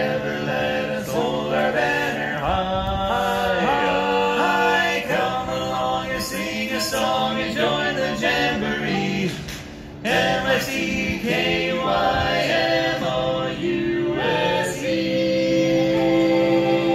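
Barbershop quartet singing a cappella in close four-part harmony, with a short break about ten seconds in, then moving into a long held chord near the end.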